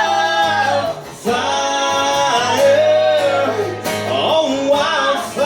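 Country song sung to guitar accompaniment: long held sung notes that bend in pitch, with a brief pause about a second in.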